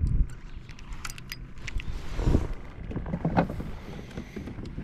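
Handling noises in a kayak: scattered light clicks, knocks and short rubs over a low, steady rumble.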